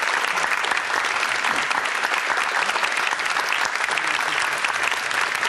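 Studio audience applauding: a long, steady round of dense clapping.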